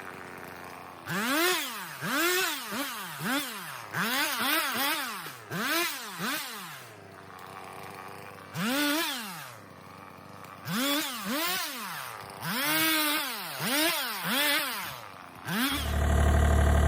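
Two-stroke chainsaw revved up and down in a series of short throttle blips, its pitch rising and falling with each one, with brief pauses between. Near the end, the Bobcat E35 mini excavator's diesel engine starts and idles steadily.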